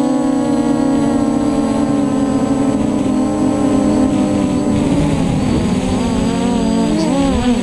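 Motors and propellers of a custom-built F330 FPV quadcopter whining, heard from its onboard camera. The pitch holds steady for about five seconds, then swings up and down with throttle changes as the quad manoeuvres.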